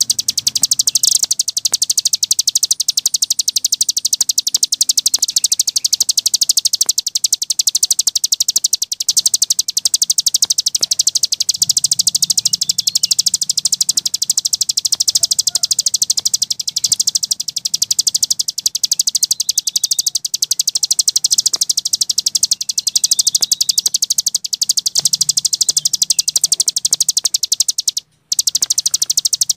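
A cici gunung singing a long, unbroken run of very rapid high-pitched chattering notes, the continuous 'ngebren' style, pausing only briefly near the end.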